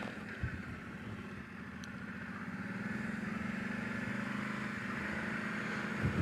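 Kawasaki Brute Force 750 ATV's V-twin engine running at low trail speed, easing off about a second in and picking up again from about two seconds on, with a single light knock near the start.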